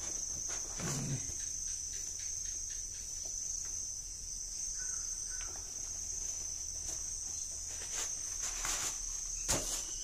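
Insects chirring in one steady, high, unbroken drone, with a few soft rustles and sharp taps as a sneaker is handled; the sharpest tap comes near the end.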